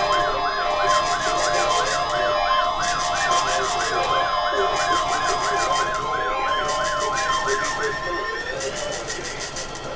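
NOAA Weather Radio warning alarm: a steady 1050 Hz tone with a warbling, siren-like tone sweeping up and down alongside it, both cutting off about eight seconds in.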